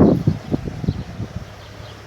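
Wind buffeting the microphone in irregular gusts, loudest at the start and easing after about half a second.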